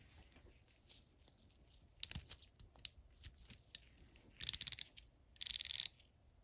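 Hand-held 1/4-inch drive fine-tooth ratchet being worked. A few separate sharp clicks come about two seconds in, then two short bursts of rapid ratcheting clicks near the end.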